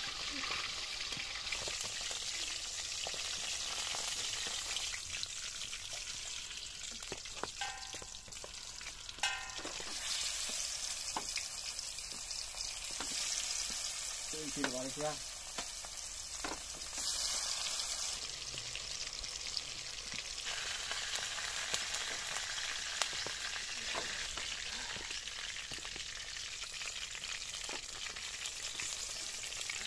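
Fish steaks deep-frying in hot oil in an iron kadai: a steady sizzle with scattered small crackles and pops.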